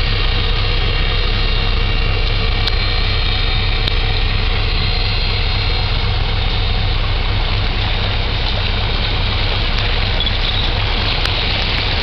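A small coaster's diesel engine runs steadily as the cargo ship passes close by: a low drone with a fainter whine above it. The rush of water from the hull grows through the second half.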